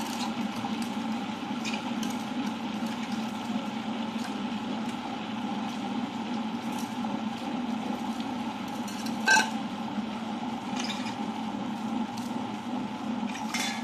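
Tabletop wet grinder running steadily, its stone rollers turning in the stainless drum as they grind soaked urad dal with its soaking water into idli batter. A single sharp knock comes about nine seconds in, with a few faint ticks.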